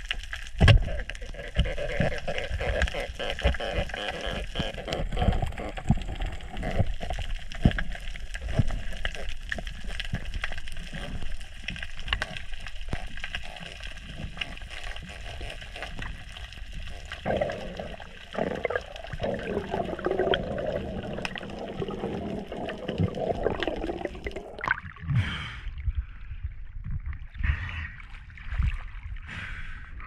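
Water heard underwater: a muffled gurgling wash with low thumps and knocks. Near the end it gives way to splashing as the surface is broken.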